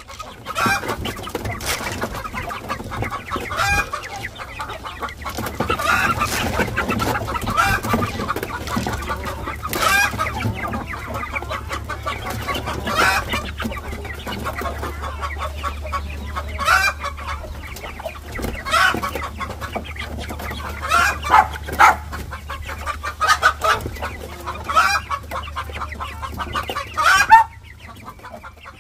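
A flock of young Ayam Cemani chickens clucking, with many short calls coming irregularly one after another.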